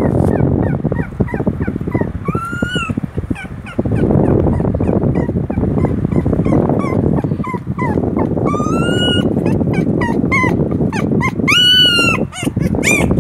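Newborn puppies whimpering and squealing while being handled, in many short high cries that rise and fall, with a few longer, louder cries in the second half. A loud steady rumbling noise runs underneath.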